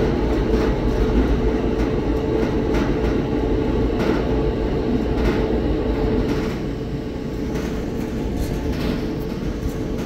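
Amana electric dryer (Whirlpool-built) running a drying cycle: the drum turning and the blower running with a steady rumble, and scattered clicks and knocks throughout.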